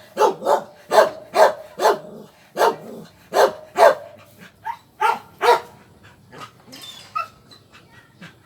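A dog barking repeatedly, about two barks a second, loud for the first five seconds or so, then a few fainter, scattered barks.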